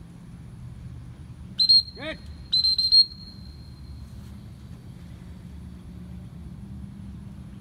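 A high whistle blown twice: a short blast, a quick falling sweep, then a longer trilling blast about a second later, whose note trails off faintly over the next two seconds.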